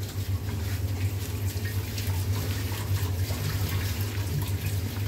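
A gloved hand squeezes and mixes chopped onion and green chilies with salt in a bowl, making soft, wet squishing and rustling with small irregular ticks, over a steady low hum.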